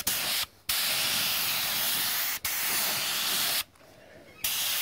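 Paint being sprayed, hissing in on-off bursts as the trigger is pulled and released: a short burst, a long one of about three seconds, then another starting near the end.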